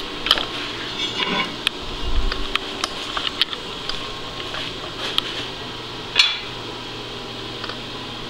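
Scattered clicks and metal knocks of handling in a machine shop, with a low thump about two seconds in and a sharper click about six seconds in, over a steady hum.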